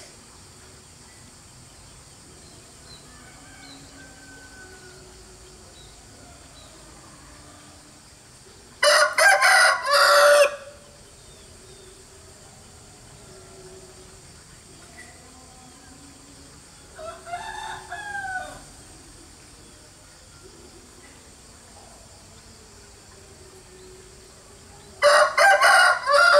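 Rooster crowing three times: a loud crow about nine seconds in, a fainter crow about eight seconds later, and another loud crow at the end.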